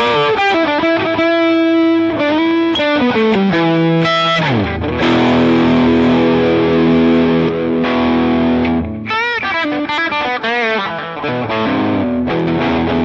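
Electric guitar played through a JOYO R21 overdrive pedal. It plays overdriven single-note lead lines with string bends and vibrato, slides down in pitch about four seconds in, and moves into held chords with more bent notes later.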